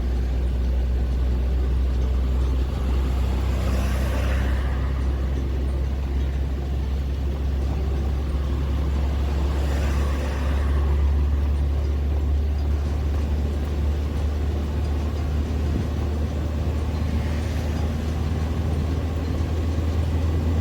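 Steady low drone of a lorry's engine and road noise heard from inside the cab while cruising on a motorway, with three faint swells of hiss, about six seconds apart.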